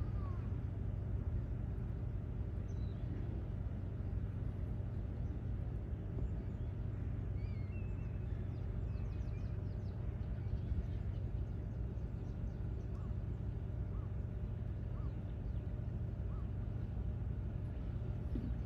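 Outdoor ambience: a steady low rumble with a few scattered bird chirps over it.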